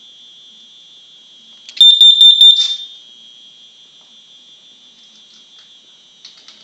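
Home smoke alarms sounding a steady high-pitched tone, with one alarm blaring loud and close in rapid pulses for just under a second about two seconds in.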